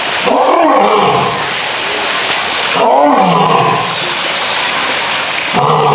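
Male lion roaring: three deep calls about three seconds apart, each lasting about a second, over a steady hiss.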